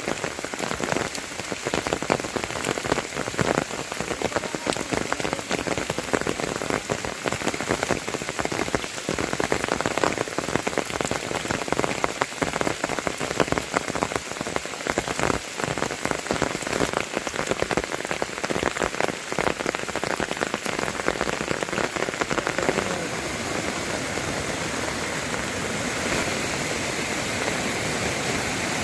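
Heavy rain falling: a dense patter of drops hitting surfaces. A little over two-thirds through, it settles into a smoother, steady rush.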